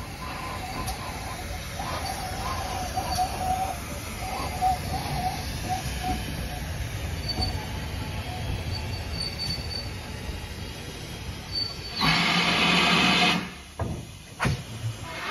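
GWR Manor-class 4-6-0 steam locomotive 7822 rumbling slowly alongside the platform, with faint wavering squeals. About twelve seconds in, steam hisses loudly from the locomotive for about a second and a half, followed by two short bursts of hiss.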